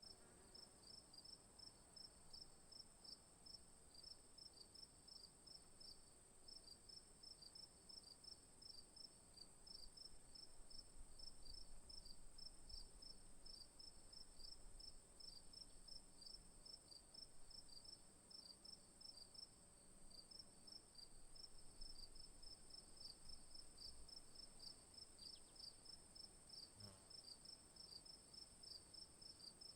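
Faint insect chorus: a steady high-pitched buzz with a rapid, even chirping, about three chirps a second.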